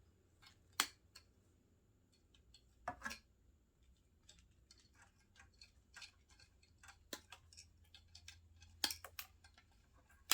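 Scattered sharp clicks and taps of small metal parts and hand tools being handled while taking apart an old intercom, with a few louder clicks among fainter ticks.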